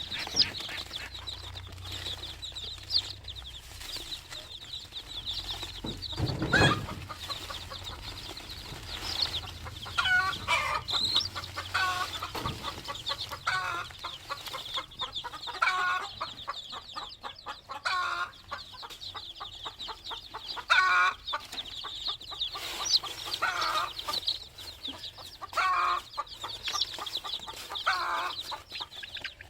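A flock of young chicks peeping continuously in a dense high chorus, with louder, lower chicken calls every couple of seconds from about a third of the way in. A single low thump about six seconds in.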